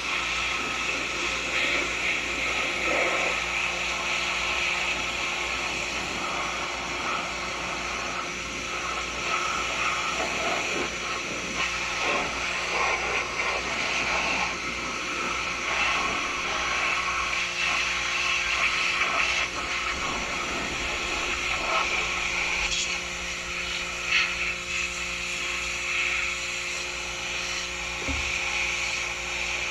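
Pressure washer running steadily, its motor humming under the hiss of the high-pressure water jet spraying onto the backhoe, the spray's sound shifting a little as the wand moves.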